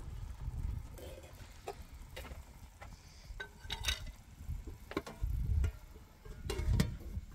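A metal ladle clinking and scraping against an aluminium cooking pot of rice, with scattered light knocks. Near the end a lid is set on the pot with a few clanks.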